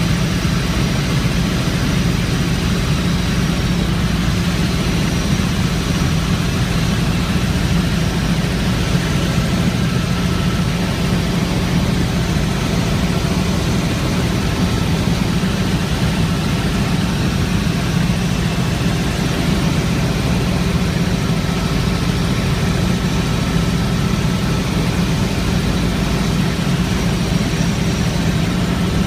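Helicopter in flight, heard from inside the cabin: a steady, loud, low drone of engine and rotor with faint steady high whines above it.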